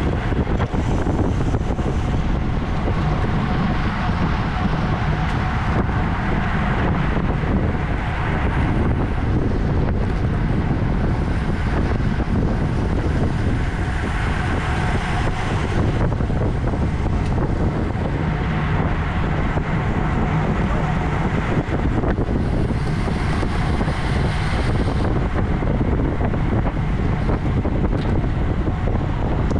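Steady wind rushing over the microphone of a camera riding on a racing bicycle at race speed.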